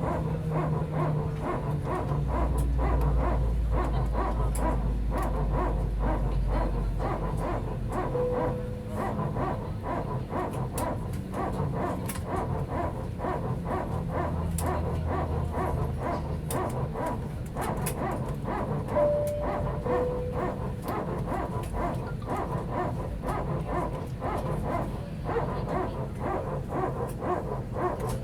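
Airbus A320 cabin noise at the gate: a busy clatter and rustle of passengers over the low hum of the cabin air, with a short single chime about a third in and a high-low two-tone chime about two-thirds in.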